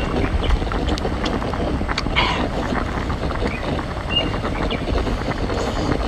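Steady low rumble of wind on the microphone, with a few small sharp clicks, twice, as a cooked sea snail is handled and eaten off its shell.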